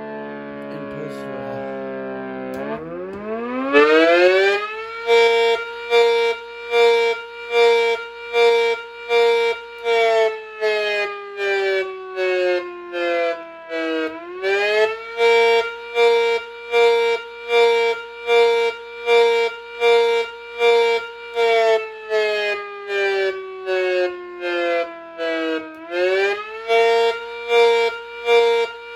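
Mini A.C.A. Cyclone 125 electric siren, its intake mostly taped over, winding down, then spinning up sharply about three seconds in. Its tone is then chopped into regular pulses a little over once a second while the pitch slowly falls and climbs back twice: a simulated pulse-wail signal.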